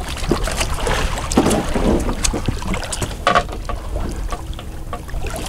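Water splashing and sloshing beside a boat hull as a hooked grouper thrashes at the surface and is grabbed by hand, with wind on the microphone and a few short, sharp knocks.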